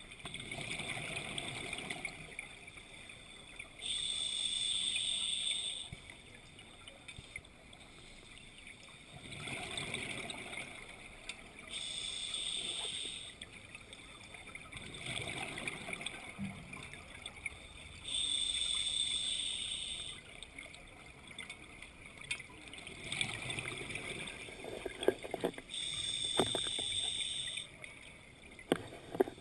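Scuba diver breathing on an open-circuit regulator underwater, heard through the camera housing: a short hissing inhalation, then a rush of exhaled bubbles, repeating about every seven seconds. A few sharp clicks near the end.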